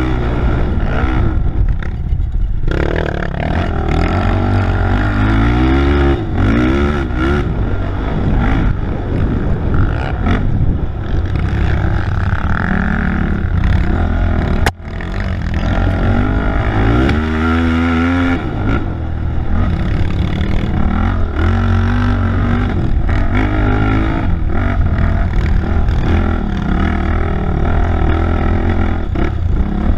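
ATV (quad) engine running hard from an onboard camera, its pitch rising and falling again and again as the rider accelerates, backs off and shifts over a rough dirt trail.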